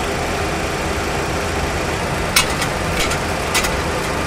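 Steady cockpit background noise in a Boeing 737 full flight simulator, with a few sharp clicks in the second half as the vertical speed wheel on the mode control panel is turned.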